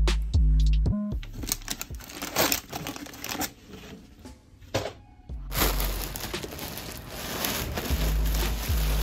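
Plastic bags crinkling and crackling as red rubber-coated work gloves are handled, over background music with deep bass notes at the start and again near the end. From about halfway on, a steady rushing noise takes over.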